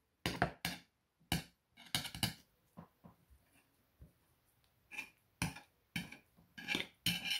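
Knife and fork clicking and scraping against a plate while cutting a thin pancake into pieces: a dozen or so short clicks in clusters, with a lull midway.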